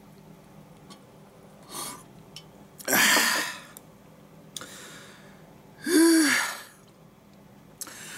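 A man exhaling hard after a swallow from a can: two loud, breathy blasts about three and six seconds in, the second voiced with a rise and fall in pitch, and fainter breaths between them.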